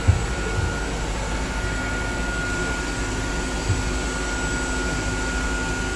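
Steady hum of ventilation and machinery, with a faint constant high whine over it. A few soft knocks come near the start and again a little before the end.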